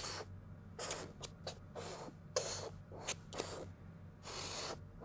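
Conductive silver-ink marker pen drawing lines on paper: a series of about eight scratchy strokes of varying length, with a longer stroke near the end.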